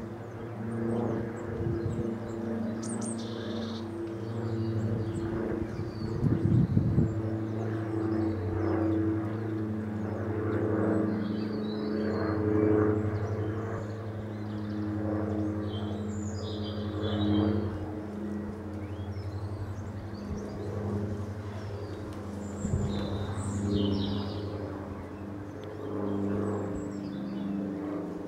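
Diamond DA42 Twin Star's two propeller engines running steadily overhead, heard as a hum of several steady tones. Small birds chirp now and then, and there is a brief low rumble about six seconds in.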